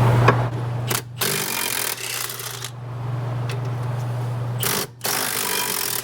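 A power wrench running in two bursts of a second or more each, spinning out brake caliper bracket bolts.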